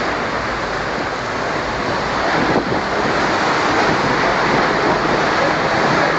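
Strong tornado wind with driving rain: a loud, steady rush of wind and rain that grows a little louder about halfway through.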